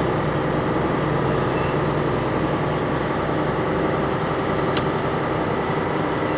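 Motor of a small vehicle running steadily with an even hum as it moves along, with one brief tick about five seconds in.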